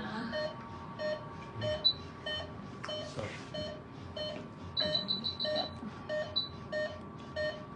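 Veterinary anaesthesia patient monitor beeping steadily, about one and a half beeps a second, in time with the anaesthetised wolf's pulse. A quick run of higher alarm beeps comes about five seconds in.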